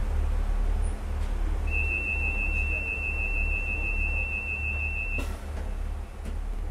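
A steady low rumble of a train, with a single steady high-pitched tone like a whistle held for about three and a half seconds. The tone starts about two seconds in and cuts off suddenly.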